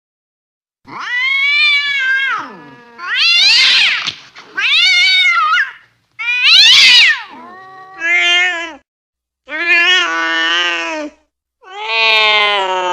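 Angry domestic cat yowling: a series of about seven loud, drawn-out yowls, each bending up and down in pitch, the last one long and held.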